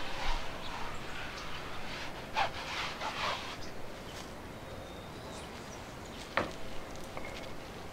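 Brush scrubbing a thin, watery acrylic wash onto a stretched canvas in short, scratchy strokes for the first three seconds or so, then fading into quieter background with one short sharp sound about six seconds in.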